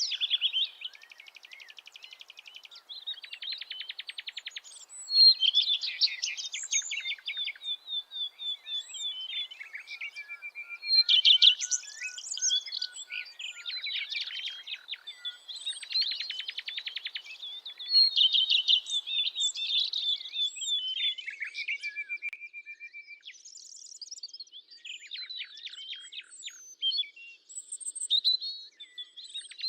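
Songbirds singing: a dense chorus of high chirps and fast trills in short phrases, one after another every second or two.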